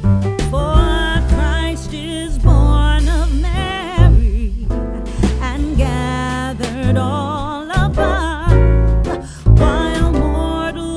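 Background music: a singing voice with vibrato over a loud bass line and beat.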